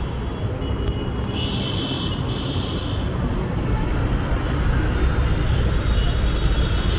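Road traffic noise: a steady low rumble of passing engines and vehicles, with a brief high tone about a second and a half in.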